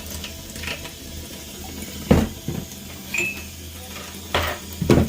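Four sharp clinks and knocks of hard metal parts being handled, over a steady low hum.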